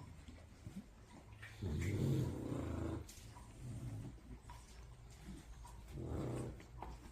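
A dog snoring heavily in its sleep, with low rasping snores: a long one about a second and a half in, a fainter one after it, and another near the end.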